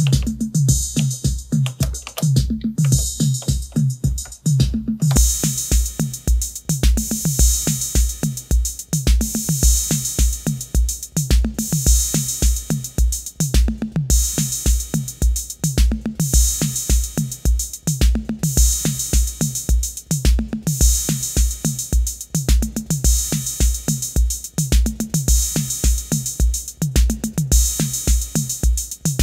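Roland TR-606 Drumatix analog drum machine playing a programmed pattern, now working after its power supply repair, recorded from its line output with a little reverb and delay. A kick drum hits on every beat, about twice a second, under the pattern's toms, snare, cymbal and hi-hats. A bright wash of hats and cymbal comes in about five seconds in.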